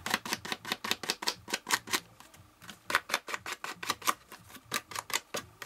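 Quick taps of an ink pad dabbed against a paper tag on the table, about four or five a second with a short pause about two seconds in, working brown ink into the tag's corner.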